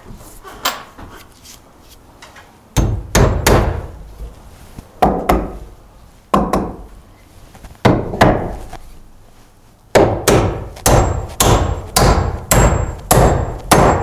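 Steel framing hammer driving a nail into a wooden joist overhead: a series of sharp blows on the nail head, a few spaced ones at first and then a faster run of about ten blows in the last four seconds.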